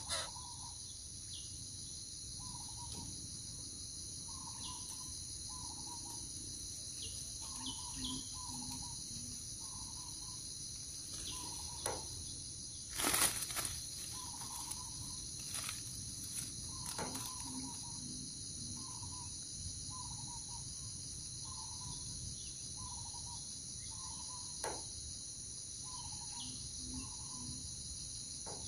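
Steady high-pitched insect chorus, with short chirping notes repeating about once a second and a few sharp knocks around the middle.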